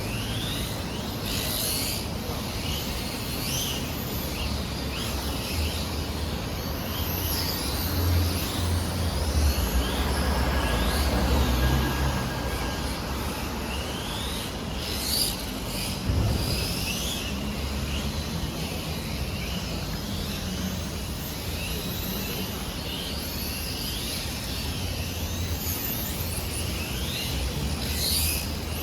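Radio-controlled model cars lapping a track, their motors giving many short high whines that rise and fall as they speed up and slow down, over a steady low traffic rumble.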